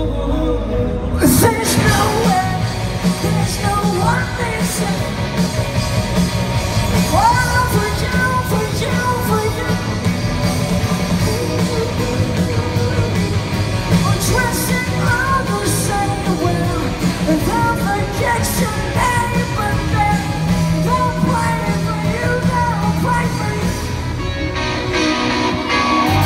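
A rock band playing live, with electric guitars, bass, drums and synth under a woman singing lead. The full band comes back in about a second in.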